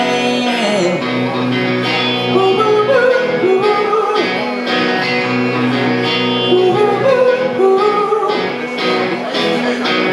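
Live band music: sustained chords with a lead melody line bending up and down over them, guitar to the fore.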